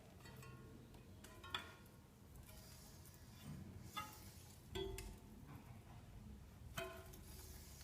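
A wheel squeaking: four short, high-pitched squeaks at uneven intervals over a faint low hum.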